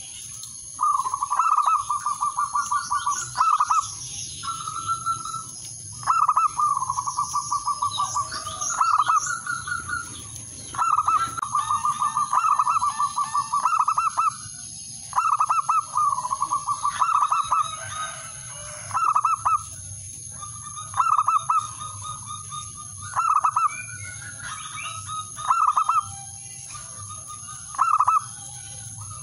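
Male zebra dove (perkutut) singing: about ten repeated phrases of rapid staccato cooing notes, each a second or two long, separated by short pauses. This is the male's call to rival males.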